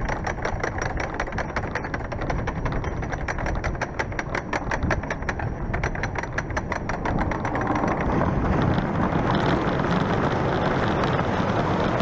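Intro sound effect: a rapid mechanical clicking, about seven clicks a second, that gives way after about eight seconds to a steady rushing noise.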